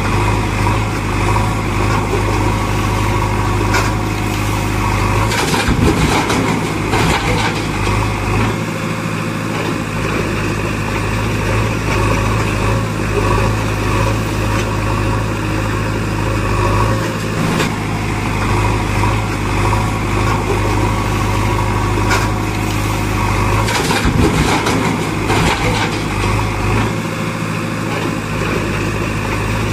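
Heavy-machine engine idling steadily, a sound effect laid over toy loader play, with a few brief clatters of gravel and stones.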